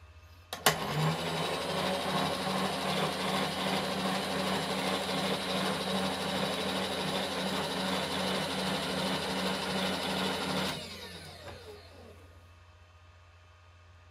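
A milling machine motor switched on with a click, running steadily for about ten seconds, then switched off and winding down.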